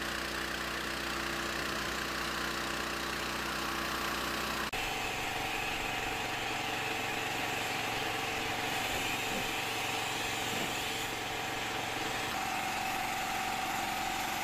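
Van-mounted pressure washer running steadily, with the hiss of the spray lance over a low machine hum. The sound changes abruptly about five seconds in, after which a steady high tone runs through it.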